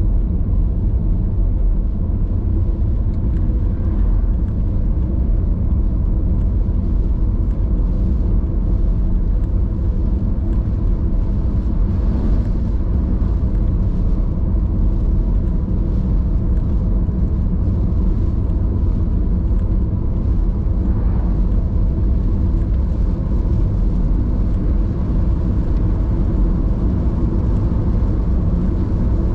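Steady low rumble of a car's engine and road noise heard from inside the cabin while driving on a wet road.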